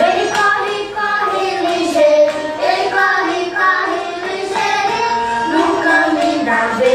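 A song with a sung melody over instrumental backing, playing without a break.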